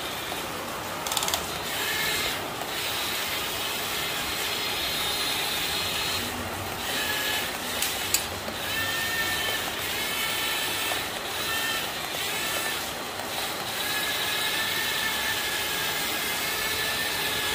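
Tigong remote-control toy excavator's small electric motors and plastic gears whirring as it drives on its tracks, swings and works its arm; a high whine starts and stops several times as different motions are run, then holds steady near the end, with a few sharp clicks.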